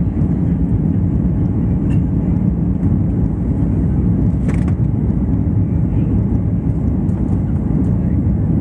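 Steady low rumble of a jet airliner's engines and rushing air, heard from inside the cabin during the climb after takeoff. A short click about halfway through.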